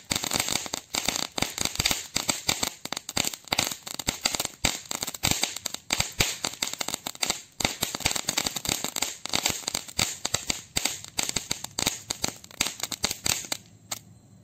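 Annai Pyrotech 'Chalsa Dance' ground firework crackling: a dense, irregular run of sharp pops as it scatters sparks and crackling stars over the ground. The pops thin out and die away near the end.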